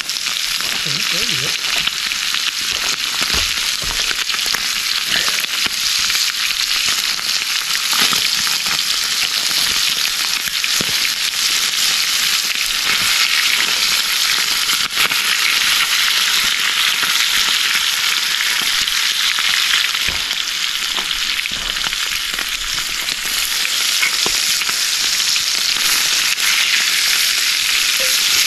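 Grouse meat frying in fat in a cast-iron skillet over a campfire: a steady sizzle with small pops and crackles scattered through it.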